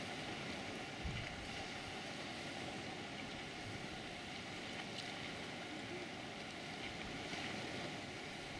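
Steady outdoor ambience: an even wash of noise with a faint steady hum underneath and a few soft ticks.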